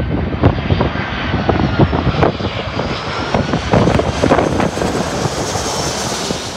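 Airbus A340-300's four CFM56 jet engines running at approach power as the airliner passes low overhead with gear down: a loud, steady jet noise with a thin whine that slides down in pitch, and a higher whine that grows near the end.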